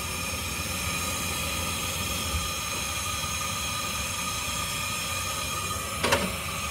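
A 10,000 BTU propane camp-stove burner running at full flame with a steady rushing hiss. About six seconds in, a pot is set down on the burner grate with a short knock.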